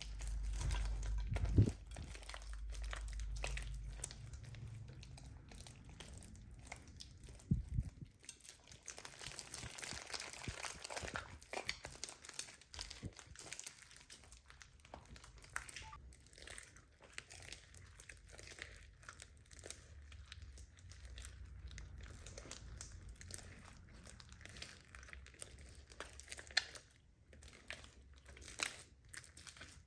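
Irregular crinkling and crackling from slime-making materials being handled, with a low rumble in the first few seconds.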